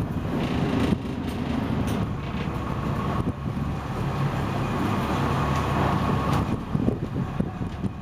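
Sport-fishing boat's engine running steadily, a low rumble under a continuous rushing noise of wind and water.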